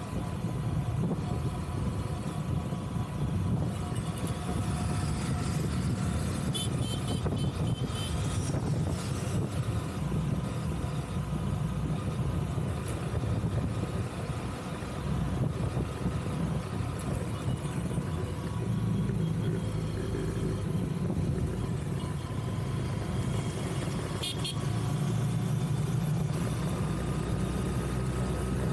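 City road traffic heard from a moving vehicle: a steady low rumble of engine, tyres and wind on the microphone. A vehicle horn toots briefly about seven seconds in.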